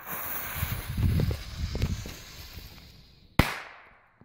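A firecracker's fuse hisses as it is lit with a jet-flame lighter, followed by footsteps through the forest undergrowth. About three and a half seconds in, a Pyro Cracker firecracker goes off with a single sharp bang that echoes away.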